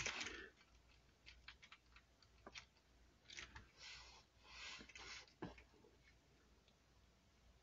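Near silence, with a few faint, scattered clicks and soft rustles as hands handle the plastic front end and steering linkage of a small RC truck, quiet for the last couple of seconds.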